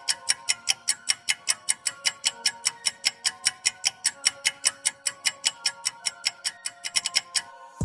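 Clock-ticking timer sound effect, about five sharp ticks a second, over a soft sustained music bed; the ticking stops shortly before the end. In a quiz this marks the countdown for answering a question.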